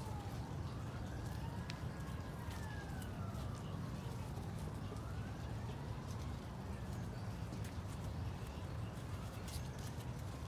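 Emergency-vehicle siren wailing, its pitch rising and falling slowly about every four seconds, over a steady low rumble.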